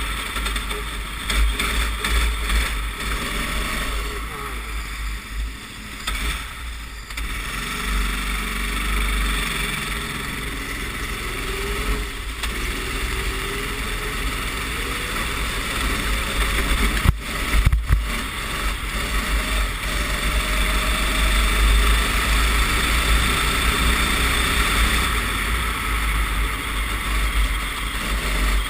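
Racing kart engine heard from on board, its pitch rising and falling as the kart laps, over heavy wind rumble on the microphone. Two sharp knocks come a little past halfway.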